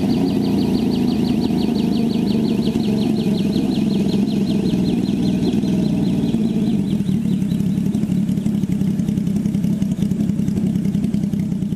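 MH-1 light helicopter running on the ground with its main rotor turning: a steady engine and rotor drone. A high warbling whine rides on top, slowly falling in pitch and fading out about two-thirds of the way through.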